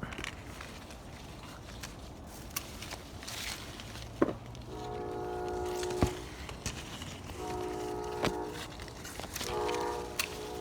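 A distant horn sounding a chord of several steady tones in three long blasts, starting about four and a half seconds in, the last still going at the end. Several sharp clicks and snaps are mixed in, the loudest just before and during the first blast.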